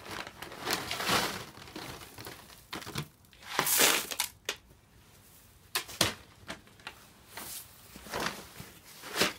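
Plastic feed sacks rustling and crinkling as sheep feed is scooped out, with a scoopful of dry feed poured into a plastic tub about three and a half seconds in, and scattered knocks of the scoop and tub.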